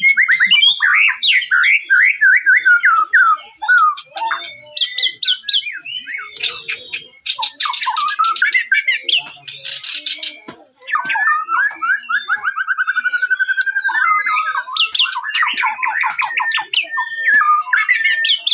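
White-rumped shama (murai batu) singing a long run of rapid, varied whistled phrases and fast trills, with a couple of harsh scratchy notes about eight and ten seconds in.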